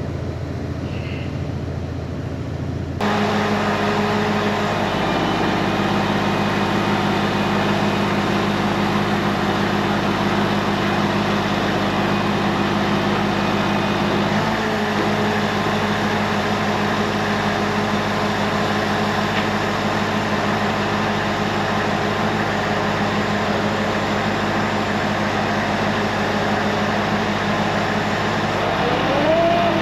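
Semi truck's diesel engine running steadily with the hydraulics that unload the trailer's gypsum load. It gets louder about three seconds in, and the pitch rises near the end.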